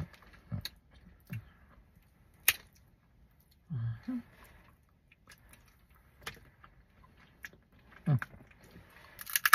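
Someone eating crab legs: chewing and sucking sounds, scattered sharp clicks of crab shell being cracked and picked, and a few short low hums, the longest about four seconds in and another about eight seconds in.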